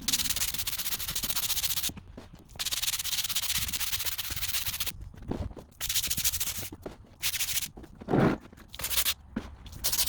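Pressure washer jet hissing against patio paving, cut on and off abruptly several times at the trigger.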